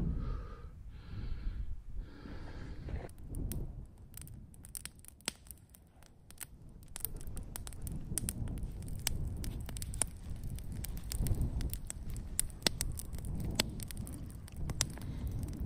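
Wood campfire crackling, with irregular sharp pops over a low rumble from about three seconds in. A few seconds of rustling come before it.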